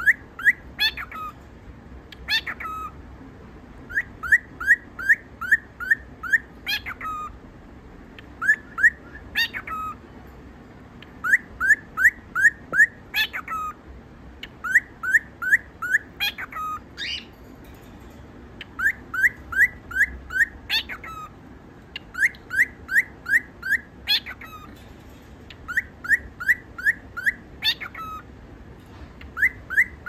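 Cockatiel whistling its song: runs of five to eight quick, clipped whistled notes, each run capped by a longer note that sweeps up high. The phrase repeats about eight times. It is the repetitive whistled song a male cockatiel uses to show off and court.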